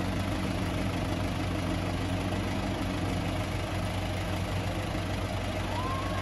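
Wood chipper's engine running steadily at idle, not chipping. A short rising whistle sounds near the end.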